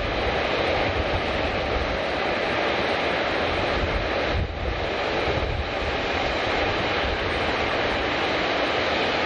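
Jet airliner's engines at takeoff thrust as it lifts off and climbs away: a steady rushing noise with a low rumble underneath.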